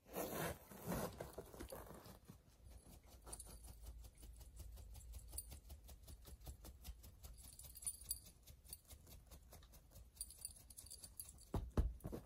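Rapid, irregular clicking and tapping, several a second, with a louder scuffling burst at the start and a few heavier knocks near the end.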